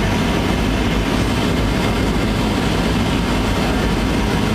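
Airliner cabin noise in flight: the jet engines and air rushing past the fuselage make a loud, steady rushing noise with a strong low rumble, heard from inside the cabin.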